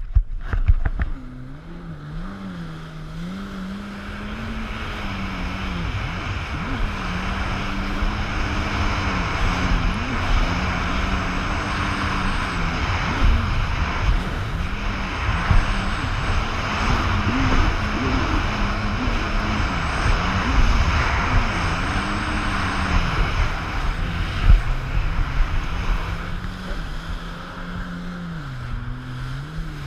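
Personal watercraft engine running, its pitch rising and falling with the throttle, under a steady rush of spray and wind noise on the helmet camera. A few sharp thumps come in the first second, and the engine drops to a lower pitch near the end.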